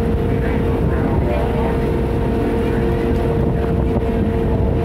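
Passenger ferry boat's engine running steadily under way: a low rumble with a constant hum, and wind buffeting the microphone.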